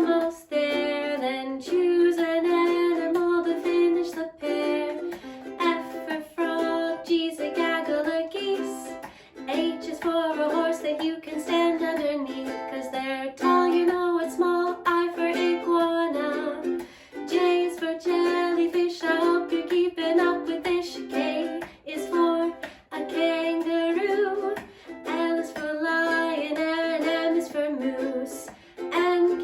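A woman singing a children's alphabet song about animals over a plucked-string accompaniment.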